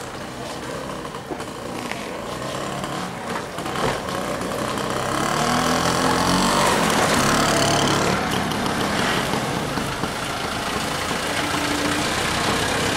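A motor scooter's small engine rides past. It grows louder to a peak about halfway through, with its pitch sliding as it goes by. Near the end a car's engine runs close by as the car drives past.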